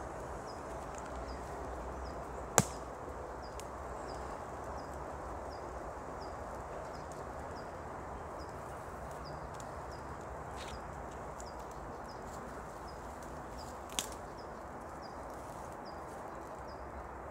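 Dry leaves and twigs being raked and scraped off the ground with a small hand rake: steady rustling and scratching, with two sharp snaps, one a few seconds in and one near the end. A short high chirp repeats over and over in the background.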